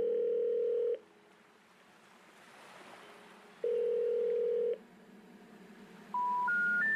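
Telephone line tones heard as through a handset: a steady low ringing tone sounds for about a second, twice, a few seconds apart, with faint hiss between. Near the end come three short beeps rising in pitch, the special information tone that comes before a 'number not in service' recording.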